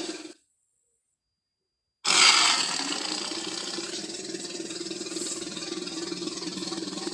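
Tyrannosaurus rex roar sound effect. One roar cuts off just after the start; after about a second and a half of silence, a new roar begins sharply, loudest at its onset, and holds as one long steady call.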